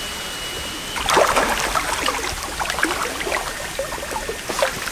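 Hooked carp splashing and wallowing at the water surface as it is drawn in to the landing net, a run of irregular splashes starting about a second in.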